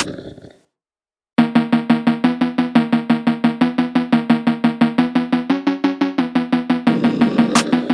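Instrumental background music: a crash fades out into a brief silence, then a fast run of repeated staccato notes starts about a second and a half in, shifting pitch briefly near the end.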